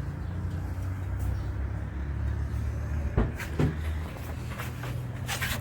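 Chevrolet Sonic engine idling steadily with its poly-V accessory belt removed, a test to see whether a strange noise comes from the belt-driven water pump or alternator. A few sharp clicks or knocks sound about three seconds in and near the end.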